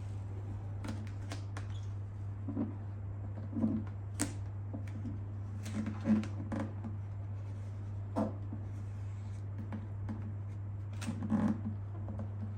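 Hands pressing and rubbing a vinyl decal down onto a plastic motorcycle fairing: scattered soft rubs, taps and small clicks, a few of them louder, over a steady low hum.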